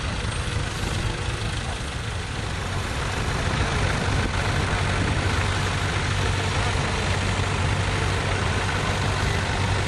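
Tractor engine running steadily, growing louder about three seconds in.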